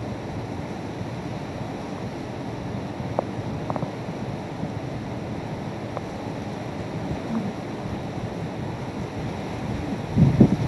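Hurricane wind and heavy rain make a steady rushing noise. Near the end a strong gust buffets the microphone with loud low thumps.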